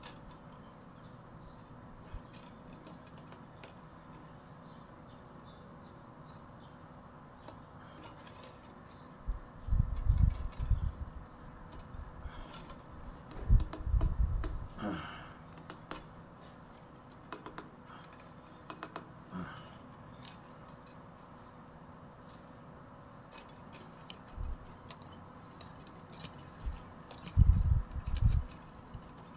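Thin bamboo strips clicking and rustling against each other as they are woven over and under by hand into the base of a fish creel. A few dull low thumps come in clusters, the loudest near the middle and near the end.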